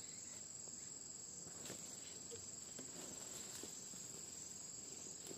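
Insects, crickets by the sound of it, trilling steadily in one constant high-pitched tone, faint, with a few soft rustles or ticks under it.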